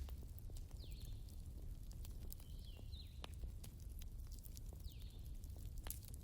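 Wood fire crackling: scattered pops and snaps over a low steady rumble, with a few short falling whistles now and then.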